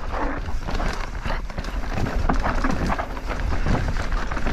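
Mountain bike riding fast over a rocky dirt singletrack: tyres crunching and clattering over rocks and roots, with the bike rattling over the bumps. Wind rumbles on the microphone underneath.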